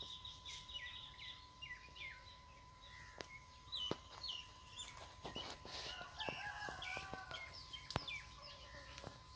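Outdoor birdsong: small birds chirping in quick repeated high notes, with a rooster crowing once, about a second long, past the middle. Scattered light clicks sound over it.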